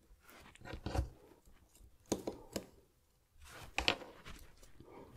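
Fingers handling a smartwatch's plastic screen module against its case: small clicks and rubbing in three short bouts.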